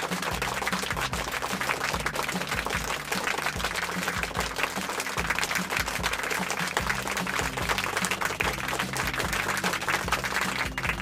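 Background music with a steady low beat under a dense, hissy texture.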